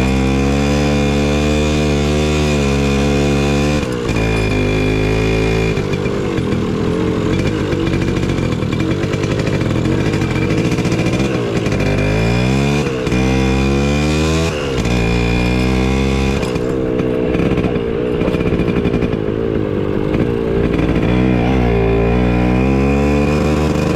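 Small motorcycle engine running under way, its pitch rising and falling with the throttle, with sudden drops in pitch several times, the first about four seconds in.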